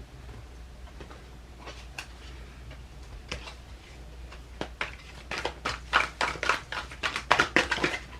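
A run of sharp clicks and taps, a few scattered at first, then quick and dense from about five seconds in until near the end.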